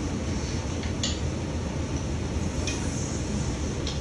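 Steady low room hum, with a couple of faint light clicks about a second in and near three seconds.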